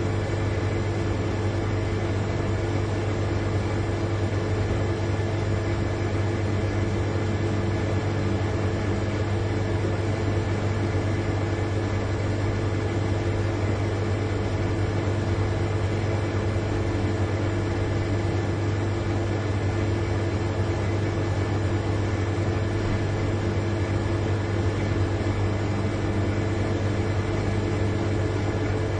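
Large refrigerator compressor running: a steady hum with a strong low tone and several fainter, higher steady tones over a light hiss.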